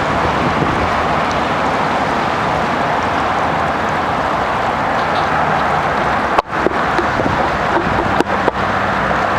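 Steady rush of water and wind around a small electric boat under way on a trolling motor. The sound briefly drops out a few times in the last few seconds.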